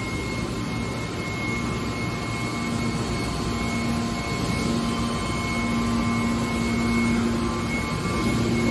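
Hydraulic scrap metal baler shear running: a steady machine drone with a low hum that grows stronger from about a third of the way in, over a thin high whine.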